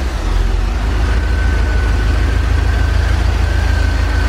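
1984 Corvette's 5.7-litre V8 idling steadily, cold, just after being started, with a thin steady whine above the engine note; the electric cooling fan is not running.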